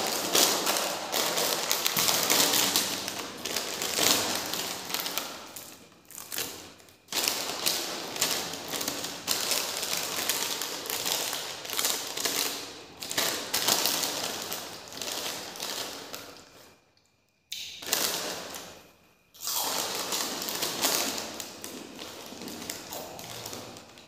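Plastic chip packets crinkling and rustling as they are handled and torn into, mixed with crunching of puffed corn snacks being chewed. The crackle is dense and busy and stops briefly twice about two-thirds of the way through.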